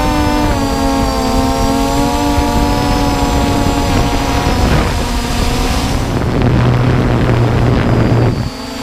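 Multirotor drone's motors and propellers whining steadily, heard from the drone's own camera microphone, with a shifting cluster of pitches. About six seconds in the sound changes to a lower hum as the drone climbs.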